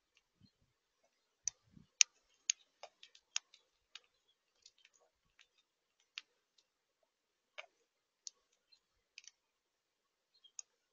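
Sharp, irregular clicks and ticks at a seed feeder, a quick flurry of them about two seconds in and then scattered single ones.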